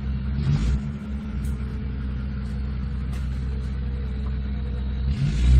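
Off-road vehicle's engine running steadily with a low rumble, swelling louder for a moment near the end.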